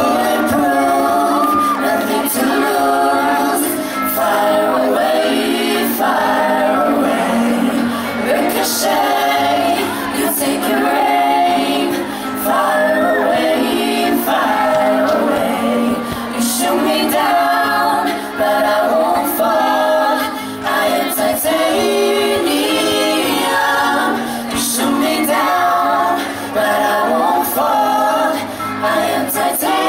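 A group of mostly female singers singing together in harmony into microphones, amplified through a PA, in a live pop-song performance.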